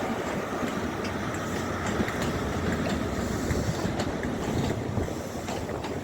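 Class 43 HST diesel train (Network Rail's New Measurement Train) moving through the station: a steady low engine and wheel rumble with scattered clicks, and wind noise on the microphone.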